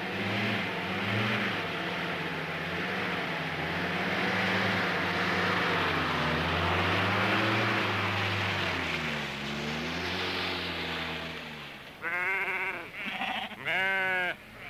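Car engine running as a small saloon drives across rough grass, its note rising and falling. Near the end, sheep bleat loudly, three times.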